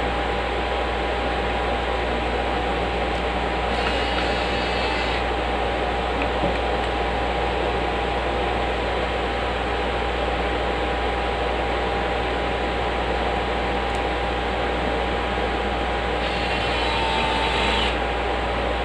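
Steady fan whir with a constant hum from the test bench, broken twice by a short run of a small handheld power tool, about four seconds in and again near the end, each lasting a second or two.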